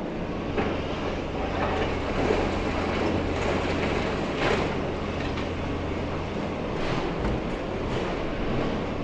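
High-reach demolition rig's engine droning steadily while its attachment tears apart a unit at the top of a building, with irregular clattering crashes of metal and debris, the loudest about halfway through.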